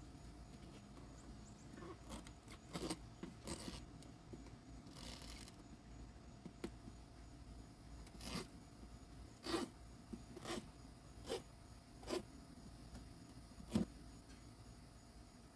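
Demko Freereign fixed-blade knife slicing through the rubber sidewall of a car tyre in separate short strokes, each a brief rasping scrape, with one sharper click near the end.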